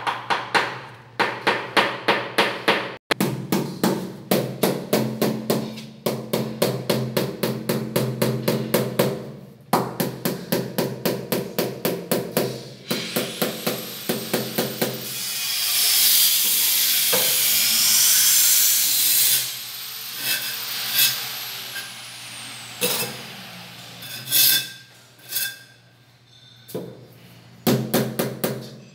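Green rubber mallet tapping a ceramic wall tile in quick runs of about four to five blows a second, bedding the tile into its adhesive. About halfway through the tapping stops for a stretch of hiss with a sweeping high tone and a few scattered knocks, then the quick tapping starts again near the end.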